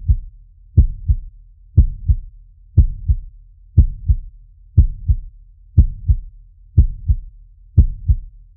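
Heartbeat sound effect: deep lub-dub double thumps, a strong beat followed closely by a softer one, repeating steadily about once a second.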